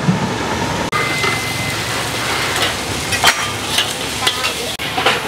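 Char koay teow stir-frying in a wok: a steady sizzle, with the metal spatula striking and scraping the wok several times in the second half.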